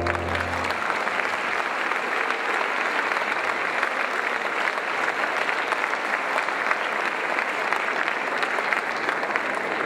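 Audience applauding steadily. The last low note of the keyboard accompaniment dies away about a second in.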